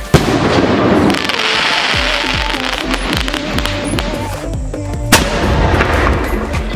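Two Lakshmi bomb sound crackers (4-inch) bursting, each a single sharp bang, the second about five seconds after the first, over background music.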